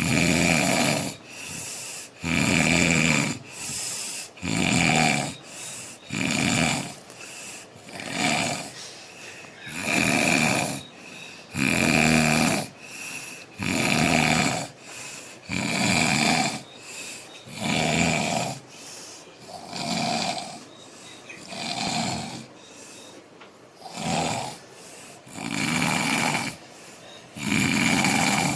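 A man snoring heavily in deep breaths: a loud snore about every two seconds, with softer breaths in between.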